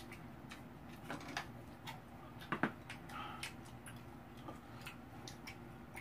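Faint, irregular clicks and taps of eating: chewing and light clinks of utensils against a bowl.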